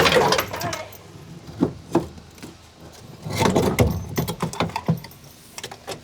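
A loud noise dies away at the start, then come scattered clicks, knocks and rattles of hand work on the car's dashboard parts and wiring, busiest about three to four seconds in.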